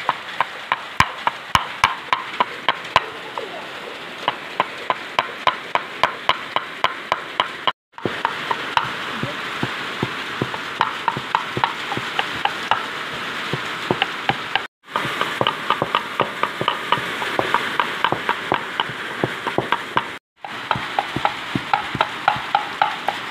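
A cleaver chopping on a round wooden board, striking about three times a second as it minces fermented fish and then fatty pork. In the last few seconds a wooden pestle pounds lemongrass, garlic and galangal in a wooden mortar with similar regular thuds.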